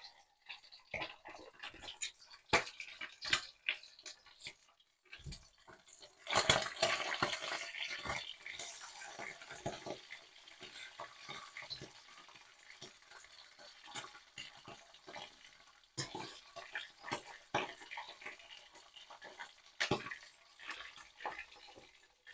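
Whitebait frying in hot oil in a wok, sizzling, with clicks and scrapes of a slotted spatula turning the fish. The sizzle gets much louder about six seconds in.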